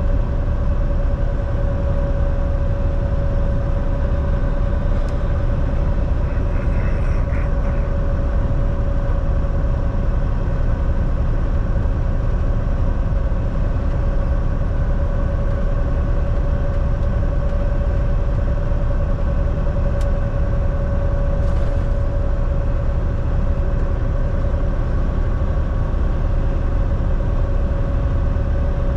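Volvo semi truck driving at a steady speed: a constant drone of engine and road noise with an even hum running through it, and a few faint ticks.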